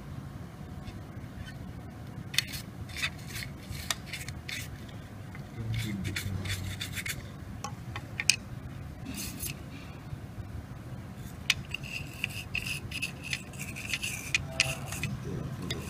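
Brush or cloth scrubbing over a wet router circuit board in short, irregular strokes, cleaning off a water-damaged board.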